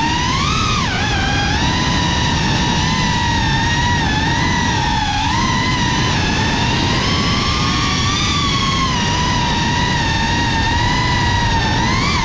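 Cinewhoop FPV quadcopter's brushless motors whining at a steady high pitch that wavers with the throttle, rising briefly about half a second in and dipping near the end, over a low rushing noise.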